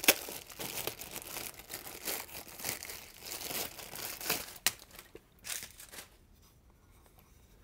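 Clear plastic bag crinkling and rustling as it is worked off a guitar effects pedal. There is a sharp click at the start and a few more clicks as the crinkling dies away, about five to six seconds in.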